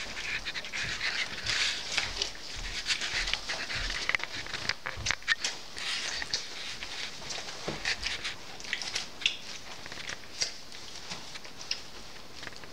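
Young puppies, about three weeks old, play-fighting on disposable puppy pads: paws scrabbling and the pads rustling and crinkling, with many small sharp clicks and scuffs throughout.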